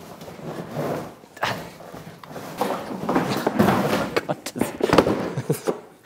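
Cardboard carton rustling and scraping as a Parkside PPWD 30 A1 workshop vacuum is wrestled out of it, with bumps of its hard plastic body and a heavy thump about five seconds in as it is set down on the wooden workbench.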